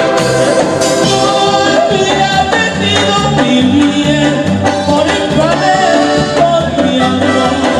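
Tierra caliente band music: a song with singing over band accompaniment and a steady bass beat.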